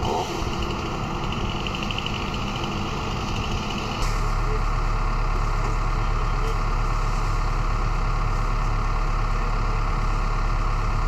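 Heavy equipment's diesel engine running steadily. About four seconds in the sound shifts abruptly to a louder, deeper rumble.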